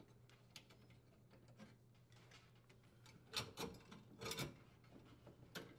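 Faint handling clicks and light metal clinks as a cable strain relief and its nut are worked free of a dishwasher's sheet-metal junction box, with two short clusters of louder clicks about three and a half and four and a half seconds in.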